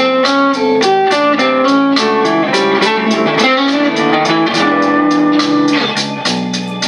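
Fender Squier Stratocaster electric guitar with a crunch tone playing a blues lead of quick single picked notes over a blues backing track.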